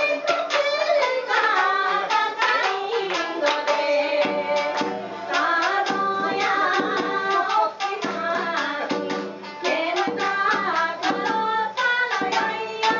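Japanese folk song (min'yō): a woman's voice singing a wavering, ornamented melody over quick, sharp plucked shamisen notes.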